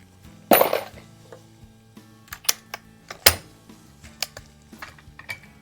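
Clicks and clacks of hands handling gear at a shooting bench, with two sharper, louder clacks about half a second in and after three seconds.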